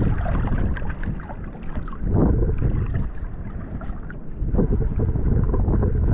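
Water sloshing and splashing right at a camera held at the sea's surface, with wind rumbling on the microphone. Louder splashes come about two seconds in and again after four seconds.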